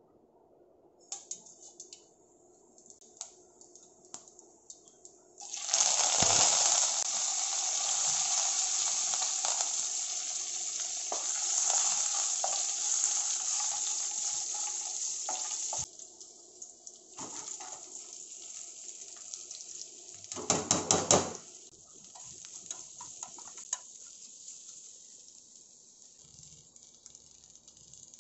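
Tempering in hot oil in a stainless steel kadai: a few small pops from mustard seeds, then about five seconds in a sudden loud sizzle as green chilli and curry leaves hit the oil, dying down after about ten seconds while a spatula stirs. About 21 seconds in there is a short burst of clatter and sizzling, then quieter frying.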